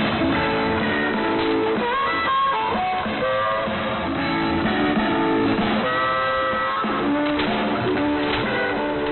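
Guitar music heard over a shortwave AM broadcast on 6950.8 kHz, thin and muffled from the narrow bandwidth, with a faint hiss of static underneath.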